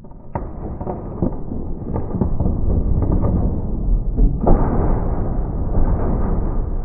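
A heavy metal generator being shoved and slid into a truck bed: a low scraping rumble with scattered knocks and bumps, louder from about four and a half seconds in.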